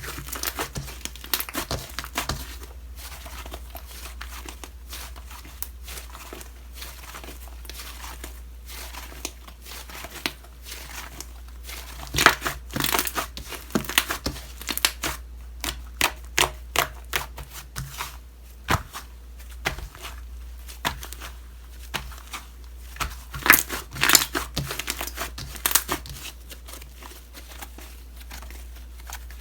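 Homemade slime being squeezed and played with by hand: irregular sticky crackling and popping clicks, with denser flurries about twelve seconds in and again around twenty-four seconds.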